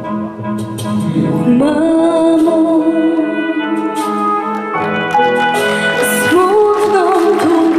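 A young girl singing a Polish song into a handheld microphone over instrumental backing; the accompaniment plays alone at first and her voice comes in about a second and a half in.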